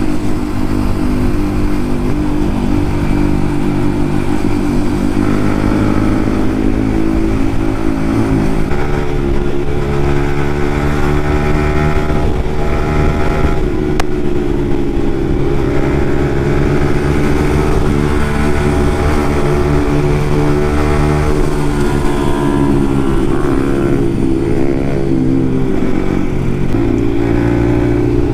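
Yamaha MT-15's single-cylinder engine running through an aftermarket Akrapovic exhaust under way, loud, its note climbing with the revs and falling back several times through the gears.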